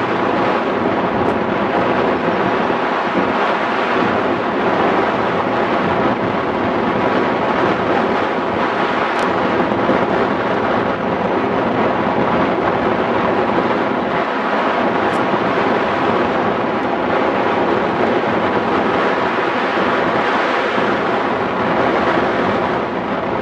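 Steady, loud rush of airflow over a hang glider in flight, buffeting the wing-mounted camera's microphone.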